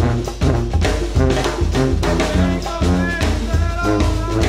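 Jazzy outro music with brass, drums and a steady beat.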